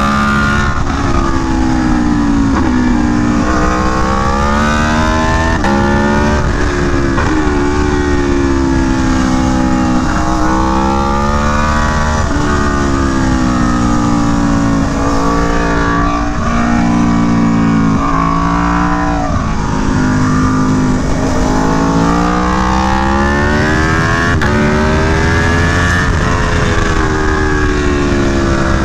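Aprilia Tuono V4 1100 Factory's V4 engine through an SC Project CR-T exhaust, ridden hard on track: the engine note climbs through the gears and drops sharply under braking and downshifts, over and over.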